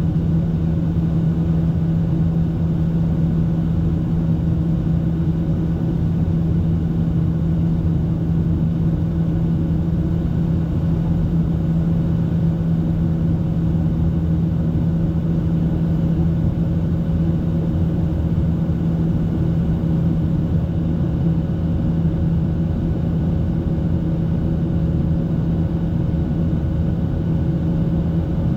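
Boeing 737-800's CFM56-7B turbofan engines at climb power, heard inside the cabin as a steady drone with a strong low hum and a fainter higher tone.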